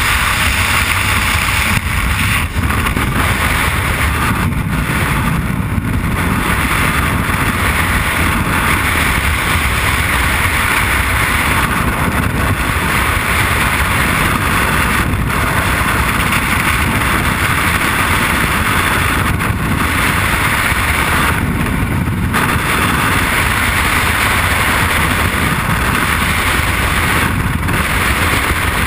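Loud, steady rush of freefall wind buffeting a helmet-mounted camera's microphone.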